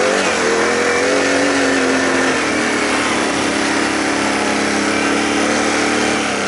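Can-Am ATV engine running hard at high, fairly steady revs as the quad climbs a steep, rough dirt slope, easing off at the very end.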